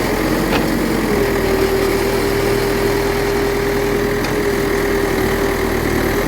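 Steady engine drone with a constant mid-pitched whine over it, like a heavy machine running at idle.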